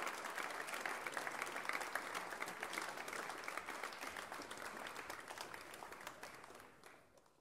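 Audience applauding, dense steady clapping that fades out near the end.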